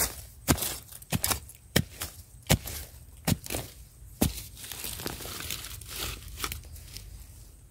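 A small hand digging blade chopping and scraping into dry, crumbly soil to dig out yam tubers: a series of sharp strikes, one or two a second over the first four seconds, then softer scraping and crumbling of earth and roots.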